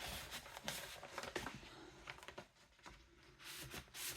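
Faint rustling and light tapping of card and paper record sleeves being handled and moved about, with a quieter pause a little past halfway.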